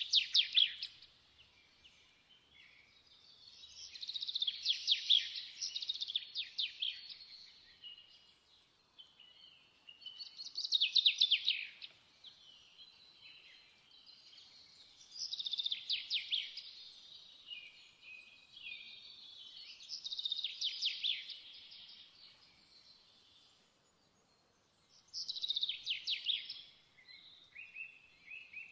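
A songbird singing in phrases of fast, high trills and chirps, one burst about every five seconds, with quieter twittering in between.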